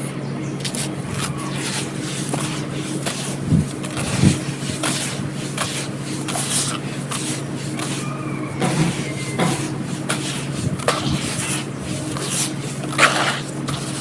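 Chalky white stones being crumbled and crunched by hand: many crisp cracks and crunches in quick succession, with a louder crack near the end, over a steady low hum.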